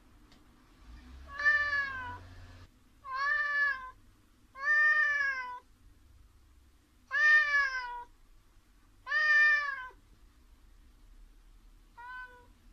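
Domestic cat meowing for food: five loud, drawn-out meows a second or two apart, each rising then falling in pitch, then one short, quieter meow near the end.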